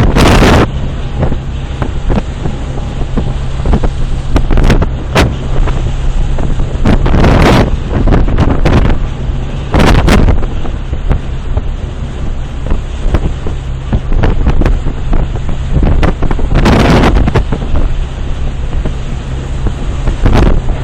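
Stormy wind buffeting the microphone in several loud gusts over the steady low hum of a ship's engines.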